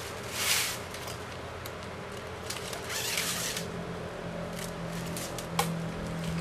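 Plastic packing straps rasping against each other as they are pulled through the weave: a short swish about half a second in, a longer one about three seconds in, and a few light clicks near the end, over a faint low hum.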